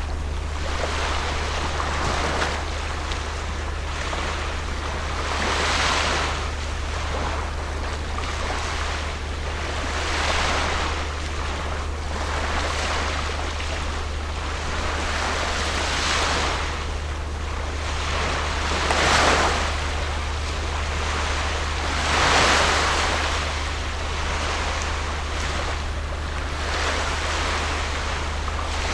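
Water washing against the channel bank in slow swells every three to five seconds, over a steady low rumble.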